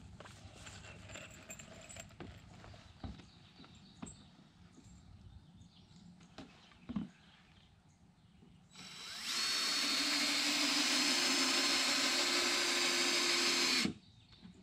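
Cordless drill driving a screw down through a wooden stair tread: a loud steady run of about five seconds that stops abruptly. Before it, a few light knocks of boards and tools being handled.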